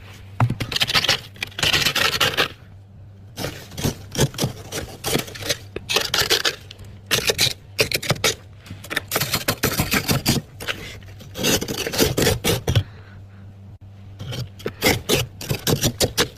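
Crunchy freezer frost being scraped and crunched in runs of gritty, crackling strokes, each run a second or three long with short pauses between, over a steady low hum.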